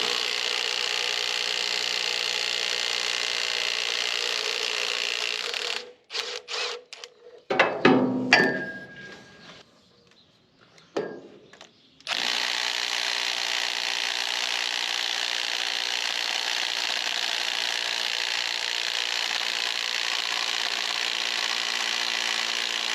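Impact wrench hammering on an engine bolt in two long bursts, the first about six seconds and the second about eleven, with a few metal clanks between them. On the second bolt the impact does not have enough power to break it loose.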